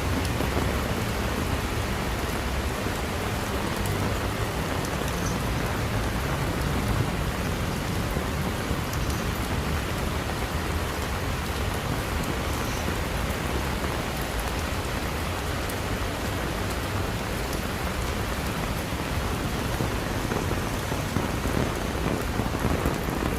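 Steady rain falling and pattering on surfaces, with a low rumble underneath.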